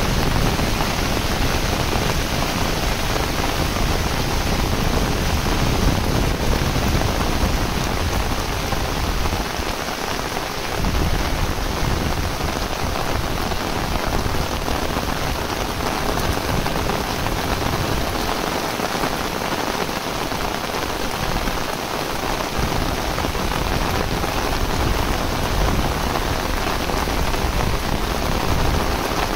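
Heavy tropical rain falling steadily on a concrete path, fields and leafy plants, an even hiss of countless drops, with a low rumble underneath that drops away briefly twice.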